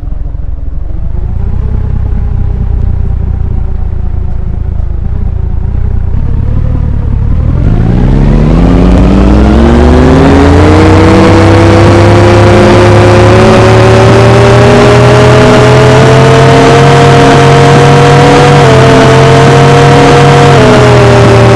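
Ceiling fan running over-speed: its motor hum climbs in pitch over a few seconds about a third of the way in, then holds high and steady under a loud rush of air.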